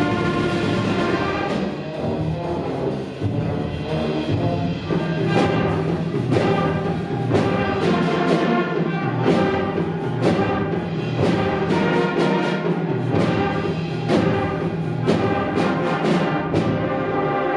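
Middle-school concert band playing a loud, driving piece: sustained brass chords and melody over percussion, with sharp drum strikes about twice a second from a few seconds in.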